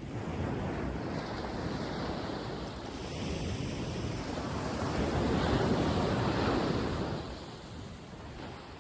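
Sea waves breaking and washing up the beach, a rushing sound that swells to its loudest a little past halfway and then dies away near the end.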